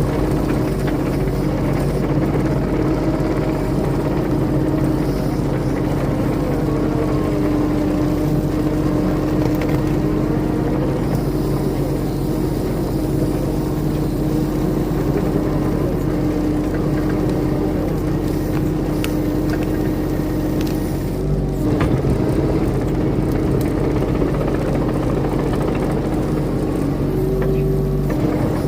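Skid steer engine running steadily while working, a constant drone with a brief dip and change in pitch about three-quarters of the way through.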